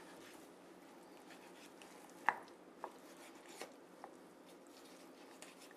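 A few small sharp clicks over faint room tone, the loudest about two seconds in, then three softer ones: a knife knocking on bone and on the wooden table while a raw turkey is boned out.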